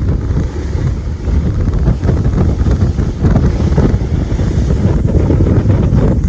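Storm wind buffeting the microphone at sea: a loud, gusty low rumble.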